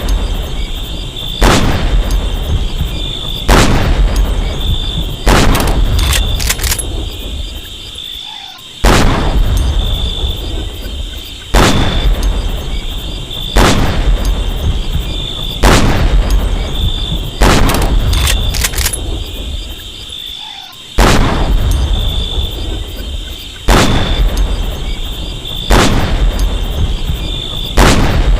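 M40A1 bolt-action sniper rifle firing, a shot about every two seconds, each a sharp crack with a long fading echo. A few light clicks come between some shots, and a steady high-pitched tone runs underneath.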